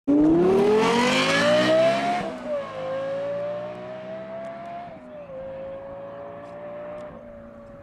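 Lexus LFA's V10 engine accelerating hard, its pitch climbing fast, then dropping at upshifts about two and five seconds in and climbing more slowly after each. It is loudest at the start and fades steadily as the car pulls away.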